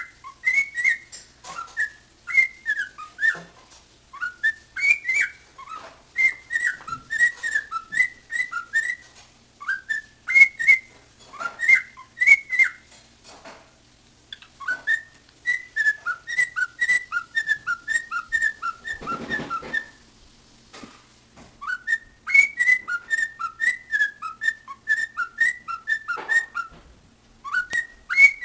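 Cockatiel whistling in fast runs of short chirpy notes, each sliding down and back up in pitch, in phrases broken by short pauses. A brief rustle comes about two-thirds of the way through.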